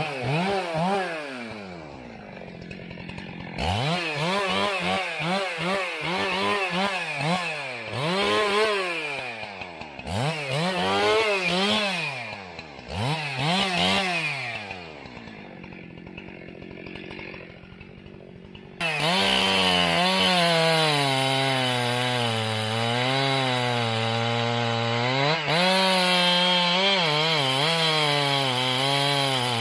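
Old two-stroke chainsaw revved up and down again and again, falling back toward idle between blips. About nineteen seconds in it jumps suddenly louder and holds near full throttle, its pitch sagging and recovering as if under load in a cut.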